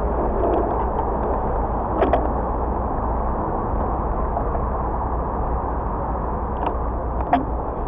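Steady city street traffic noise with a low rumble of motor vehicles, broken by two short clicks, one about two seconds in and one near the end.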